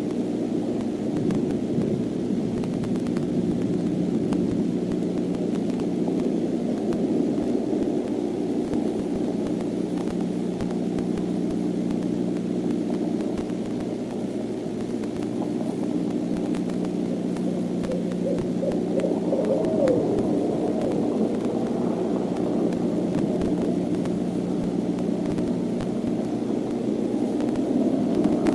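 Owl hoots: a few short calls about two-thirds of the way in, over a steady hiss and low hum.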